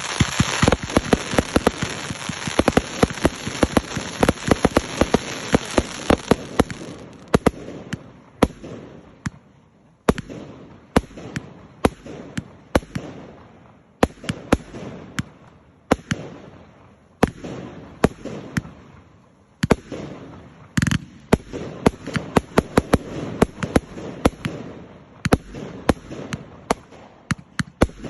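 Fireworks display: rapid volleys of bangs with dense crackling for the first six seconds or so, then clusters of sharp bangs about every two seconds.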